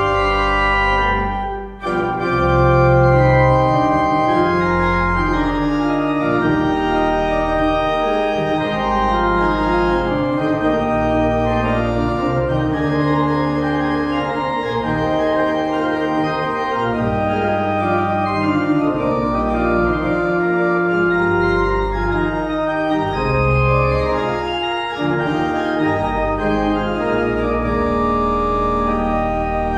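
Church pipe organ playing the closing voluntary: full sustained chords in many voices moving from one to the next, with a short break in the sound about two seconds in.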